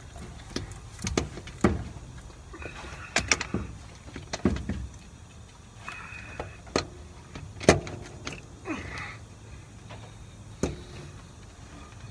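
Irregular metallic clanks and knocks of tools and parts being handled at a Volvo truck's starter mounting, about a dozen sharp knocks, a few with a brief ringing.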